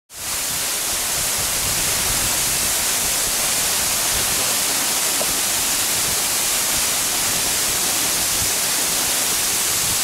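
A thin waterfall pouring down a rock face: steady rushing water that fades in at the very start and then holds even.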